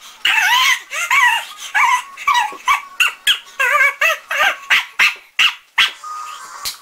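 A boy's voice shrieking in a rapid run of short, high-pitched yelps, about two a second, with no words.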